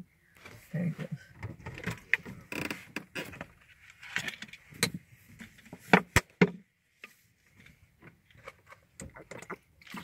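Irregular clicks and knocks with rustling inside a parked car, the loudest pair of sharp knocks about six seconds in.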